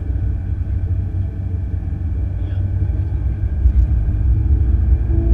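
Ferrari 488 GTB's twin-turbo V8 and road noise heard from inside the car while driving: a steady low rumble that grows a little louder toward the end.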